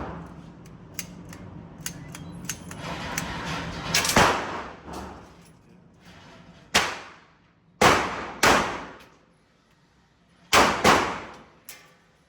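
Six gunshots fired singly and in quick pairs, each a sharp report with a short ringing tail. Fainter clicks and a low murmur come before the first shot.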